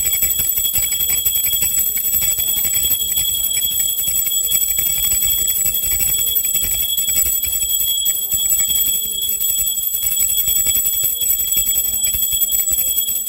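Small brass puja hand bell rung rapidly and continuously during aarti, a steady high jangling ring with several fixed bright tones.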